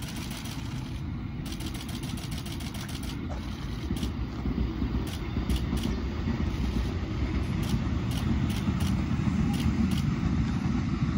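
Low rumble of a vehicle in motion, growing louder, with scattered clicks and rattles.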